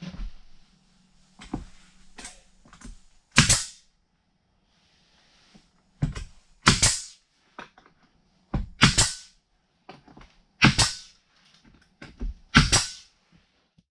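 Nail gun firing nails into spruce wall panelling: five loud sharp shots about two seconds apart, with lighter knocks of wood between them.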